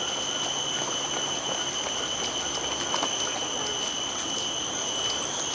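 Steady, high-pitched drone of an insect chorus, one pitch held throughout with a fainter, higher one above it.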